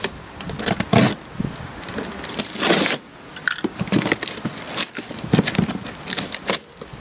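Cardboard parcel being opened by hand: irregular rustling, scraping and small knocks, with a longer rasp of cardboard or packing material about two and a half seconds in.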